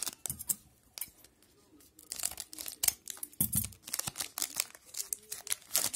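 Foil wrapper of a 2011-12 Pinnacle hockey card pack crinkling in the hands and being torn open, a run of sharp crackles that is densest near the end.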